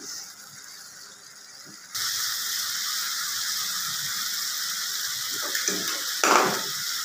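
Chicken frying in a pan: a steady sizzle starts abruptly about two seconds in and holds, with a brief clatter near the end.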